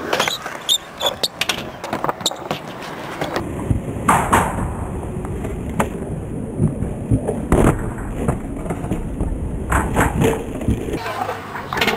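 Skateboard wheels rolling on concrete ramps, broken by several sharp clacks and knocks of the board popping, hitting ledges and landing.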